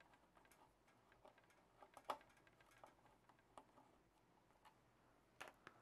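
Faint, irregular clicks of a screwdriver working screws out of a Califone 1430K record player's case.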